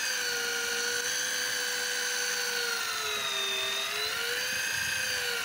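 Daiwa Tanacom 1000 electric fishing reel's motor whining steadily as it winds line in from deep water, its pitch sagging slowly about halfway through and rising again near the end.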